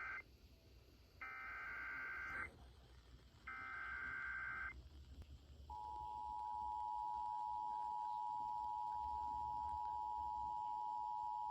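Emergency Alert System SAME header data bursts: the tail of one burst, then two more buzzy bursts of about a second each, a second apart. About six seconds in, the steady two-tone EAS attention signal starts and holds. Together they announce a severe thunderstorm warning.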